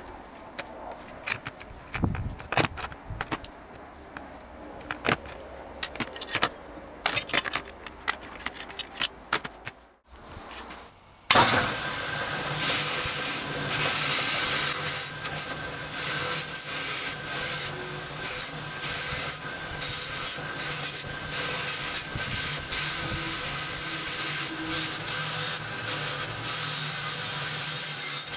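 Clicks and scrapes of a metal pick working over loose rusty iron scale parts in a plastic tray. About eleven seconds in, a bench-mounted wire brush wheel starts, running steadily with a harsh scraping hiss as rusty iron parts are pressed against it to strip the rust.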